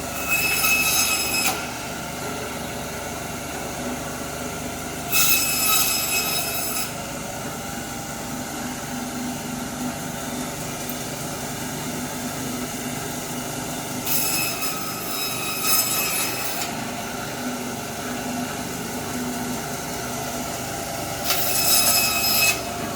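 Electric meat-and-bone band saw running steadily, its blade cutting four times, each cut a high squealing whine lasting one to two and a half seconds over the steady motor hum.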